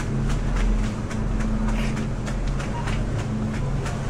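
Supermarket background noise: a steady low hum and rumble with quick, regular clicks about four a second.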